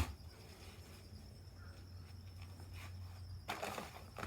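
Faint handling sounds over a low steady hum: a sharp click at the start and a short rustle near the end.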